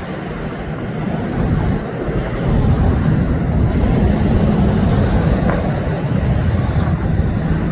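Low engine rumble from a Boeing 777-300ER's GE90 turbofans as the airliner passes overhead on final approach and draws away. The rumble grows louder about two and a half seconds in and holds steady.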